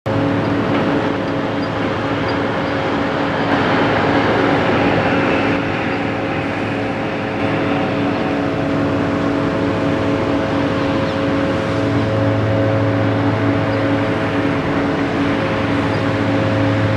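Heavy diesel engine of construction machinery running steadily under load, a low even hum over a broad rushing noise. The noise swells around four seconds in, and the low hum grows stronger about twelve seconds in.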